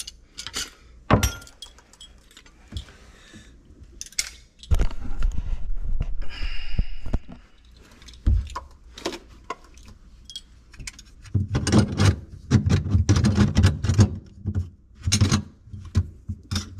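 Metal parts and hardware clinking, jangling and clunking as a garbage disposal is handled for installation. A stretch of denser rattling clatter comes about twelve seconds in.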